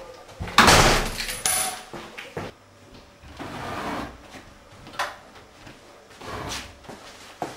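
Interior wooden doors being opened and closed, with footsteps and a few knocks. The loudest sound is a short rush of noise about half a second in.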